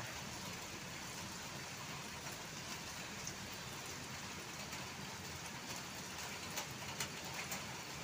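A steady, even hiss with a few faint ticks.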